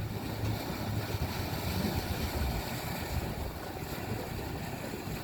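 Wind buffeting the microphone over a steady low hum of a boat's engine idling on the water.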